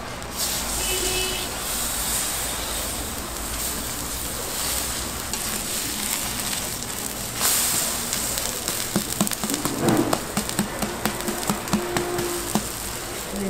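Korean pancakes (buchimgae) sizzling in oil on a large round griddle. From about two-thirds of the way in, a metal spatula taps and scrapes against the griddle several times a second over the frying.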